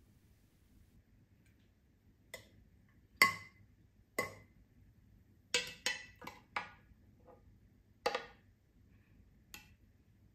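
A long-handled metal utensil clinking against a large glass kombucha jar, about nine sharp clinks at uneven intervals, the loudest about three seconds in.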